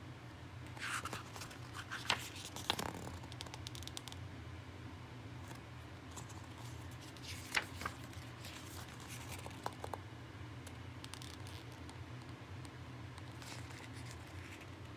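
Hands handling the packaging of a boxed disc set: light scraping and rustling with a few sharp clicks, two of them about two to three seconds in and another near the middle.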